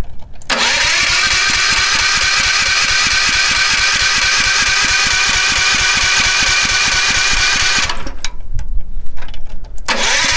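Electric starter cranking a 6.5 hp single-cylinder four-stroke Honda GX200-clone petrol engine on half choke: a steady whine with evenly repeating pulses for about seven seconds without the engine catching. It stops, a few knocks follow, and cranking starts again near the end.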